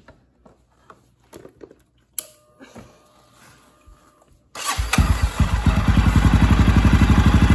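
A few faint clicks, then about four and a half seconds in the Honda dirt bike's air-cooled single-cylinder four-stroke engine starts and settles into a steady, even idle. It is freshly filled with new 10W-30 oil and is being run to circulate it before the oil level is checked.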